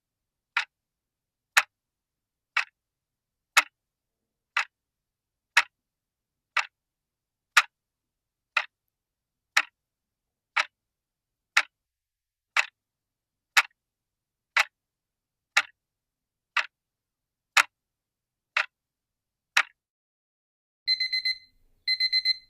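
Clock ticking sound effect, one sharp tick a second, twenty ticks in all. About a second after the last tick, a digital alarm starts beeping in quick groups of four, repeating about once a second: the countdown timer has run out.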